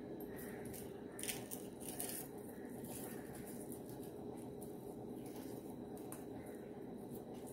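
Faint soft squishes and a few small clicks as fingers peel the charred skin off roasted tomatoes, over a steady low hum.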